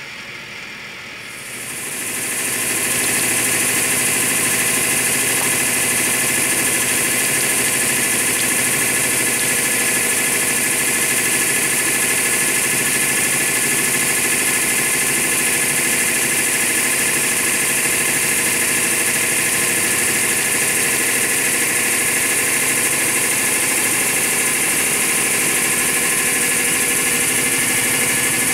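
Hydraulic press's pump motor running steadily, a hum with a strong high hiss, as the ram slowly presses down on an apple. The sound comes up about two seconds in and then holds even.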